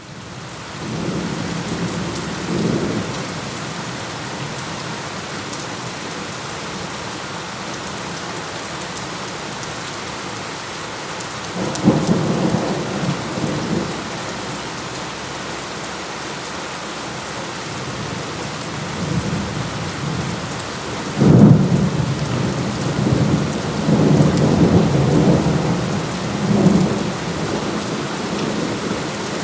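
Steady heavy rain with thunder rumbling at intervals: a faint rumble near the start, a stronger one about 12 seconds in, the loudest and sharpest clap about 21 seconds in, then rolling rumbles for several seconds after it.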